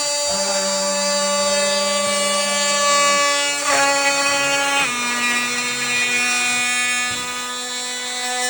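Electric multi-tool cutter running with a steady whine that shifts pitch in small steps a couple of times in the middle.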